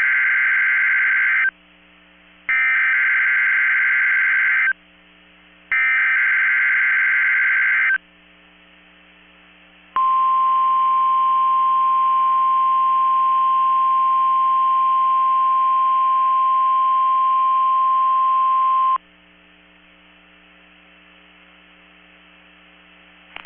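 NOAA Weather Radio Emergency Alert System signal. Three bursts of SAME digital header tones sound, each about two seconds long with a second's gap between them. After a short pause comes the steady 1050 Hz weather radio warning alarm tone, held for about nine seconds and cutting off abruptly, leaving only low radio hiss.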